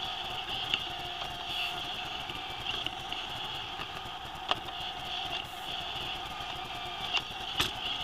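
Roomba robot vacuum running, heard from on top of the machine: a steady motor whine with a higher hiss from the vacuum and brushes. A few sharp clicks or knocks come through, the loudest about halfway and near the end, as it bumps into furniture.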